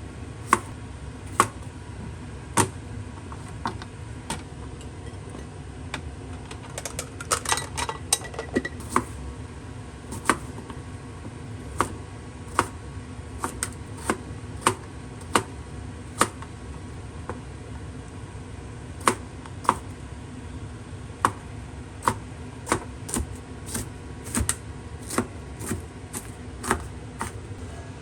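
A kitchen knife striking a cutting board in separate, unevenly spaced cuts, mostly about one a second, with a brief clatter of kitchenware about seven to nine seconds in.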